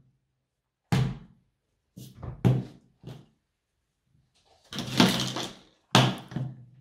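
Several short thumps and knocks as foam squishy toys and a silicone pop-it are set down and handled on a play board. There is a longer, noisier handling sound about five seconds in.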